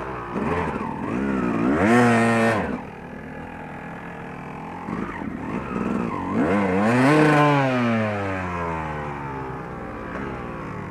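Yamaha YZ250 two-stroke single-cylinder dirt bike engine running and revved twice. The first surge rises and drops back within about two seconds, starting about half a second in. The second starts around six seconds and falls away slowly.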